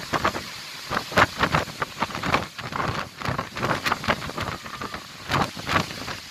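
Strong cyclone wind gusting through trees and buffeting the microphone, rising and falling in uneven gusts.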